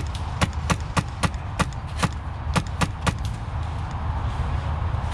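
Airsoft guns firing single shots: about ten sharp cracks at an uneven pace over the first three seconds, then they stop.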